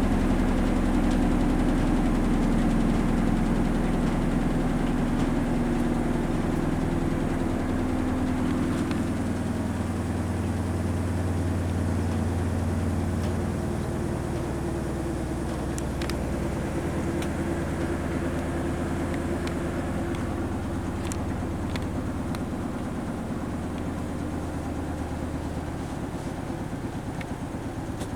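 Kenmore Series 500 high-efficiency washing machine in its spin cycle: the drum and motor give a steady low hum that grows gradually quieter, with a few faint clicks.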